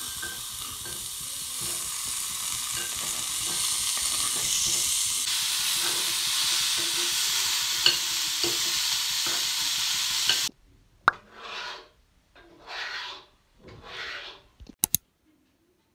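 Diced meat frying in a pan: a steady sizzle with a metal spatula tapping and scraping as it is stirred. The sizzle cuts off suddenly about ten seconds in, followed by three short soft rushing sounds and a couple of sharp clicks.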